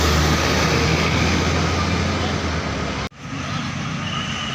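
A large bus engine running with a steady low drone. The sound cuts out abruptly about three seconds in, then resumes quieter.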